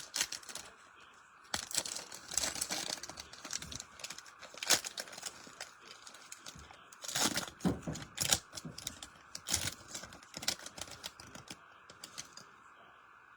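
Foil wrappers of Bowman baseball card packs being torn open and crinkled, with irregular crackles and clicks as the cards are handled.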